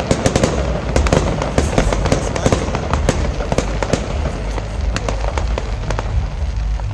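Fireworks crackling and popping: many sharp cracks in quick succession, thickest in the first three seconds and then more spaced out, over a steady low rumble.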